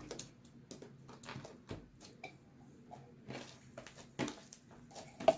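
Sticky homemade fluffy slime being handled and worked, giving irregular soft squishes and small clicks, with one sharper click near the end.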